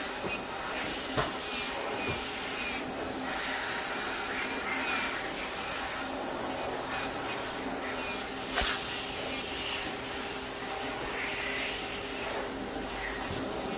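A small motor running steadily, with intermittent rubbing strokes as a nail is filed and reshaped.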